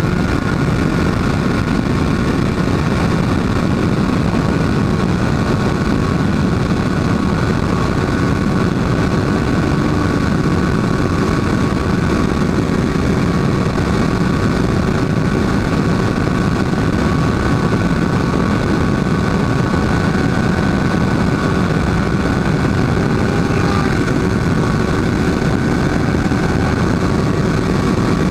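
Honda motorcycle running at a steady highway cruising speed, around 120 km/h, with wind rushing over the handlebar microphone; the sound holds steady throughout, with no change in engine speed.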